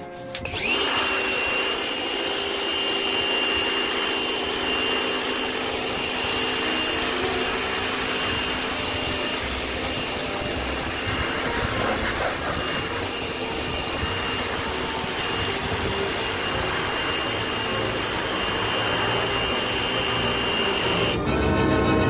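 Electric pressure washer running, its water jet spraying onto a plastic air-conditioner louver: a steady rush of spray with a steady high whine. It starts about half a second in and stops shortly before the end.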